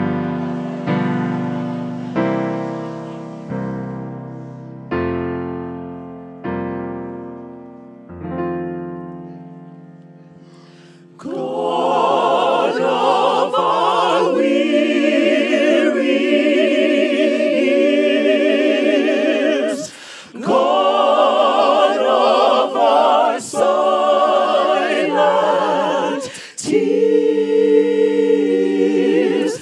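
A keyboard plays a slow series of chords, each struck and left to fade, then about eleven seconds in a choir comes in singing together over the keyboard, with brief breaks between phrases.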